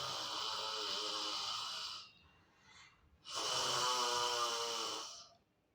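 A woman doing simhagarjana (lion's roar breath): a long, forceful, throaty 'haaa' exhaled through the wide-open mouth with the tongue out. It ends about two seconds in, a short quiet in-breath follows, and a second roar runs from about three seconds in until shortly before the end.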